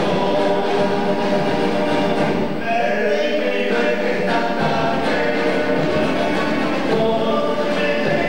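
A choir singing, several voices holding notes and moving from note to note.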